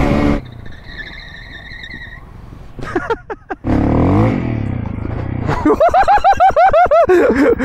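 Dirt bike engine running as it is ridden, loud for the first half-second and then quieter, picking up again with its pitch sliding from about four seconds in. A few sharp clicks come about three seconds in, and near the end a quick run of short, pitched sounds, about four a second.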